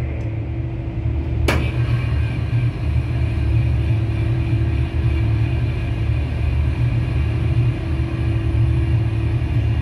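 Running noise inside a moving Indian Railways locomotive cab: a steady low rumble with a steady hum above it. A single sharp click comes about a second and a half in.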